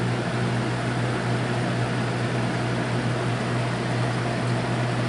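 A steady low hum with an even rush of air, like a small fan running, unchanging in level.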